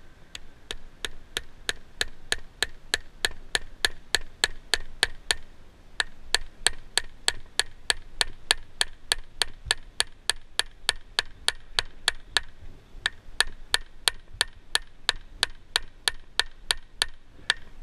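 Hammer tapping a fastener into the oak trunk to hold the copper lightning-protection cable: steady blows about three a second, each with a slight metallic ring, in three runs broken by short pauses about five and twelve seconds in.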